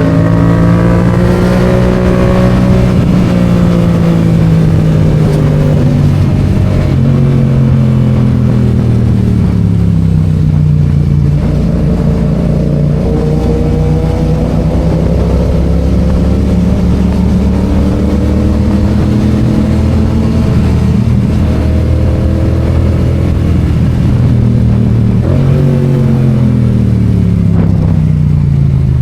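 Yamaha FZ-07's parallel-twin engine under way, its pitch climbing and falling several times as the bike accelerates, changes gear and rolls off the throttle.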